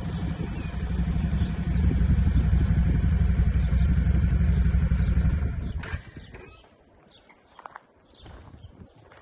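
Quad bike (ATV) engine running steadily at low revs, stopping abruptly about six seconds in; after that only a few faint clicks.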